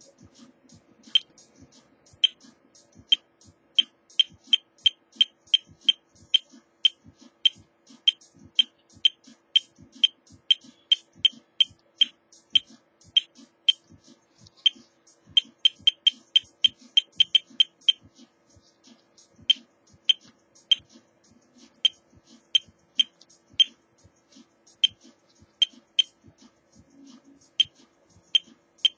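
Short high-pitched beeps from a small electronic beeper on a homemade ATmega8 RGB LED controller, one for each button press as settings are stepped through. They come singly and in quick runs of up to about four a second, with a few brief pauses, over a faint steady hum.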